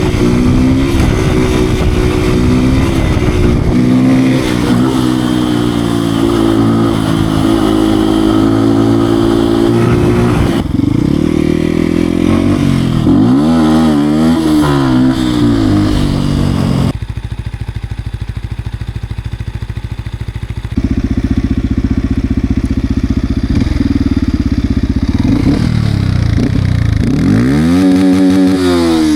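Beta RR 125 R supermoto's 125 cc single-cylinder engine being ridden, the revs climbing and falling again and again. For a few seconds past the middle it drops to a quieter, steadier note, then it picks up again, with one more rev climb and fall near the end.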